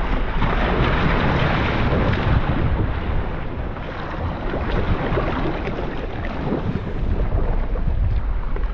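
Wind buffeting the microphone with a steady low rumble, over choppy sea water splashing against a kayak.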